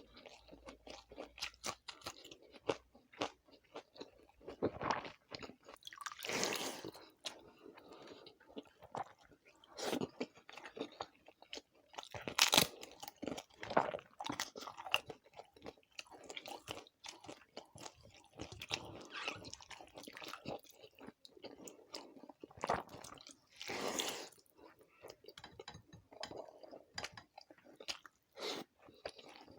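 Close-miked eating sounds: steady chewing with wet mouth clicks, broken by several louder crunches of crisp fried food.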